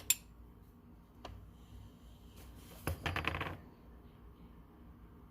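Small steel parts of an old ratchet clicking and clinking against each other and the bench as it is taken apart. There are two sharp clicks at the start and another about a second later, then a quick run of rapid metallic clicks about three seconds in.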